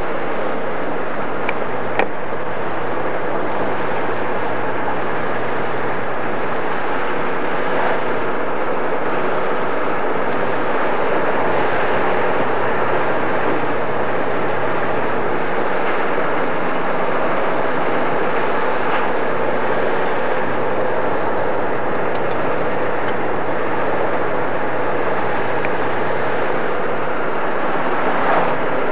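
Steady road and engine noise inside a moving car's cabin, with a low engine hum that fades in and out.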